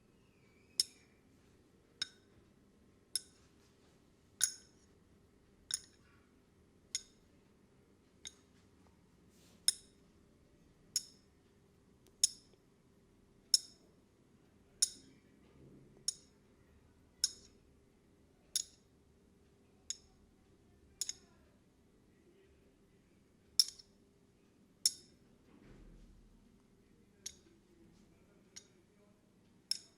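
A run of sharp, bright metallic clicks at an even pace, about one every second and a quarter, with a couple of short gaps.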